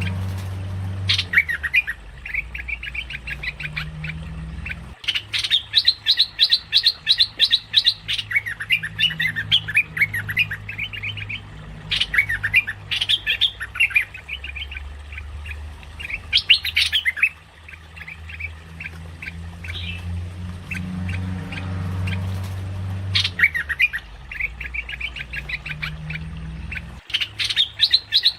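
Merbah lekir bulbul calling in bouts of rapid chattering notes, each bout a few seconds long with short pauses between, over a low steady hum.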